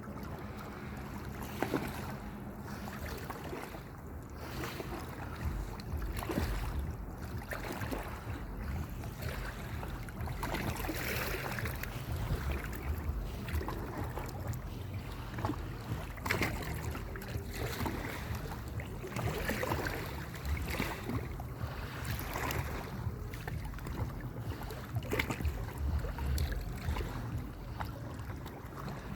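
Wind buffeting the microphone over water sounds, with scattered small splashes.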